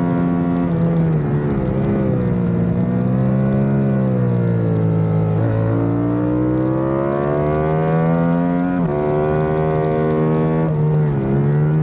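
Yamaha YZF-R7's 689 cc parallel-twin engine under hard acceleration, heard from a camera mounted on the bike. Its revs climb steadily and drop sharply at each upshift, three times about three seconds apart.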